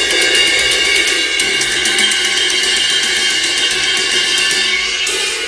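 A cymbal hit rapidly over and over with a drumstick, its bright wash ringing on continuously under the fast strokes, with a short letup near the end.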